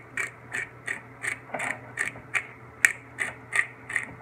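Hand-twisted pepper grinder grinding black pepper: a steady run of ratcheting clicks, about three a second.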